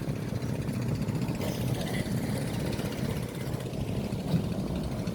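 An engine idling steadily, the sound sitting mostly low with no rise or fall.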